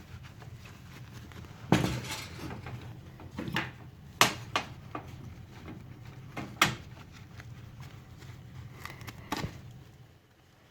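Trauma shears cutting into thick chainsaw-trouser fabric: a few sharp metallic clacks and snips a second or two apart, the loudest about two, four and six and a half seconds in.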